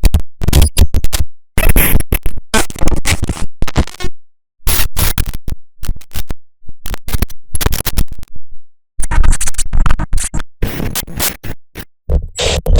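A run of digital glitch sound effects: loud stuttering bursts of distorted noise and bass that chop on and off abruptly, each burst a second or two long and broken into rapid cuts, with short gaps of silence between them.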